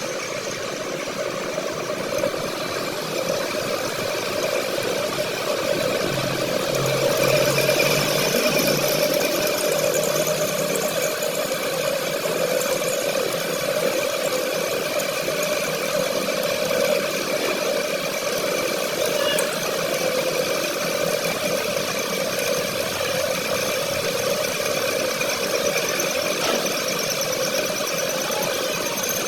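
A machine running steadily with a constant mechanical hum, getting a little louder about seven seconds in.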